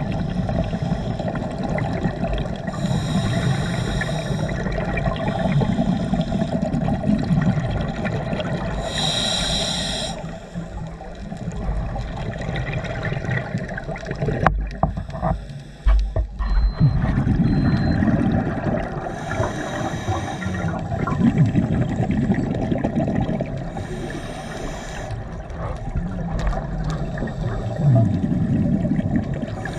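Scuba diver breathing through a regulator underwater: several short hissing inhales, each followed by a low burst of exhaled bubbles, in a slow repeating cycle. A few knocks come about halfway through.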